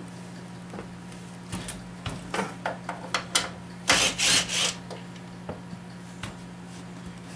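Hand tools and sockets being handled: scattered clicks and rattles, with three short rustling scrapes about four seconds in, over a steady low hum.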